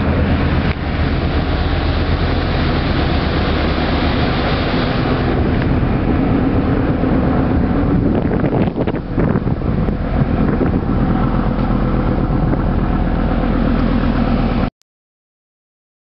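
Steady drone of a car ferry's machinery heard from the open deck: a low, even hum under a rushing noise. It cuts off suddenly near the end.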